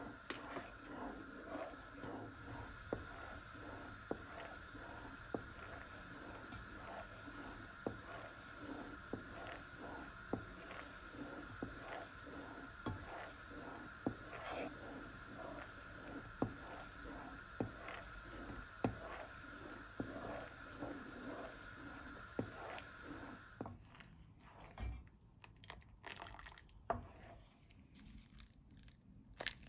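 Wooden spoon stirring and scraping round a non-stick pan of bubbling jaggery caramel, knocking the pan about twice a second over a steady hiss. About six seconds before the end the hiss stops and only a few light knocks and handling sounds remain.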